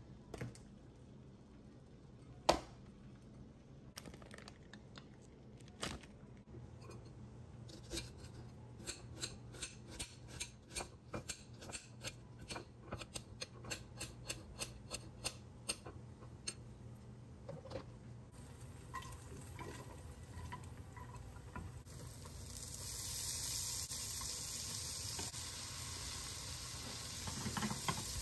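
A run of quick, sharp kitchen clicks and taps, about two a second, for several seconds. About three-quarters of the way through, food starts sizzling in a hot pan and keeps sizzling.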